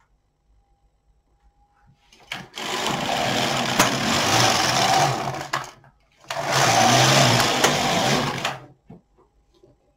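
Knitting machine carriage pushed across the needle bed and back, knitting two rows: two steady mechanical runs of about three seconds each with a short pause between.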